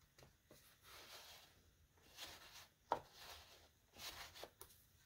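Faint handling noise of gloved hands on a cardboard board book: soft brushing and rustling, with one sharp tap about three seconds in.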